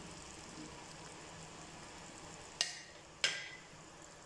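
Tomato-onion masala sizzling faintly in a frying pan as boiled potato cubes are tipped in, with two sharp clinks a little past halfway, the loudest sounds in the stretch.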